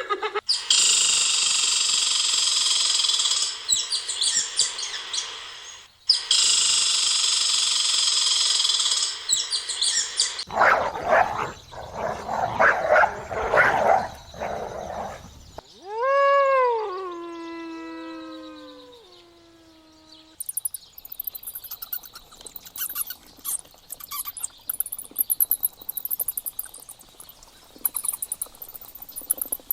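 A run of different wild animal calls, one after another. First come two long high hissing or buzzing calls, then a few seconds of rough pulsed calls. Then one long pitched call rises and falls, and many rapid high chirps close the sequence.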